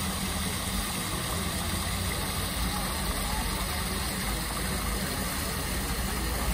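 Fountain jet splashing steadily into its stone basin.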